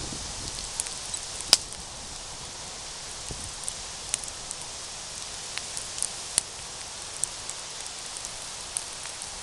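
Campfire crackling: scattered sharp pops and snaps over a steady hiss, with the loudest snap about a second and a half in.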